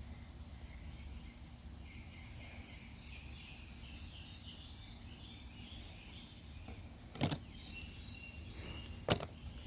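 Low steady background noise with faint high chirping, then two sharp clicks, about seven and nine seconds in, as the small plastic parts of a Kärcher KB5 cordless sweeper are handled during its teardown.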